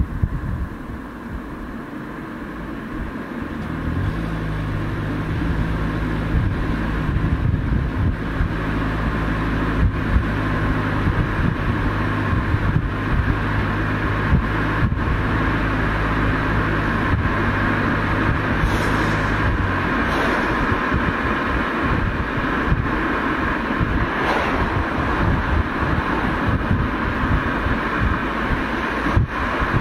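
Toyota Camry hybrid driving with steady road and tyre noise. About four seconds in, its 2.5-litre four-cylinder petrol engine starts and runs at one steady pitch, then shuts off a little before twenty seconds, leaving only road noise while the car drives on the electric motor.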